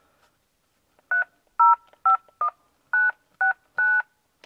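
Keypad tones of an old cellular car phone handset as its number keys are pressed: about seven short two-note beeps in an uneven run, starting about a second in.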